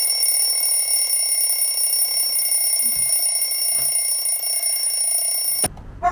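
Alarm clock ringing, one steady high-pitched ring that cuts off suddenly near the end.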